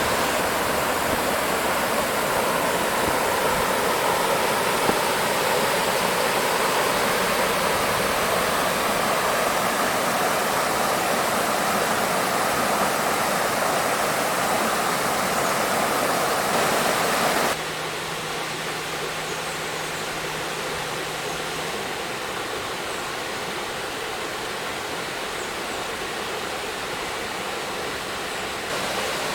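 Small waterfall at the mouth of Toonigh Creek, a steady rush of falling and splashing water. About two-thirds of the way through it drops suddenly to a softer, thinner rush.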